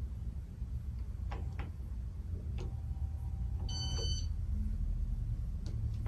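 Casablanca Nouvelle ceiling fan with an XLP2100 motor running: a steady low hum with a few faint ticks, and one short high beep a little past the middle.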